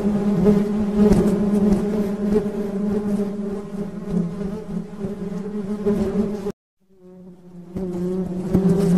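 Honey bees buzzing, a steady hum. About six and a half seconds in the buzz cuts off suddenly, and after about a second of silence it fades back in.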